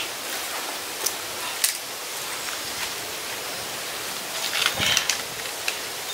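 Steady outdoor hiss beside a pond, with a few light clicks and rustles, bunched together about four and a half seconds in with one low thump.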